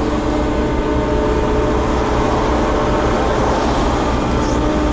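Diesel engine of a Volvo EW60E wheeled excavator running steadily, heard from inside its cab as a continuous hum with a steady whine.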